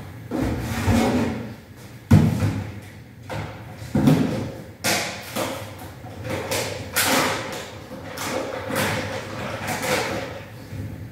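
Kitchen handling sounds: two dull thumps, about two and four seconds in, then a plastic bag rustling and crinkling as it is handled.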